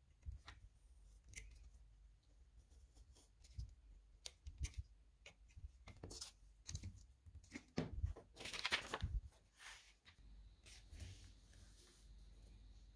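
Snap-off utility knife cutting through a paper pattern on a cutting mat: quiet short scratches and clicks as the blade scores the paper, with a longer rasping cut about eight seconds in.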